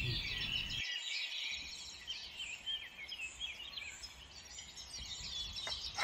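Many small birds chirping and twittering together, a dense chorus of short, high calls overlapping one another.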